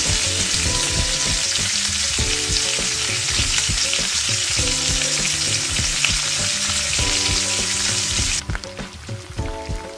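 Ghee-roasted semolina sizzling and bubbling hard in a frying pan the moment water hits the hot fat, a loud, even hiss. The hiss cuts off sharply about eight and a half seconds in.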